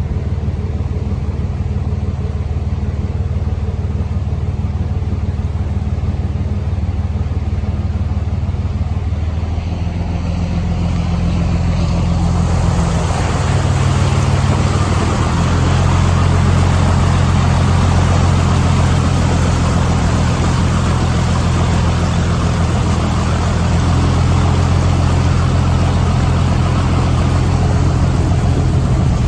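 Motor vehicle engine running steadily. About ten seconds in its note rises and stays higher, and a rushing hiss joins it from about twelve seconds in.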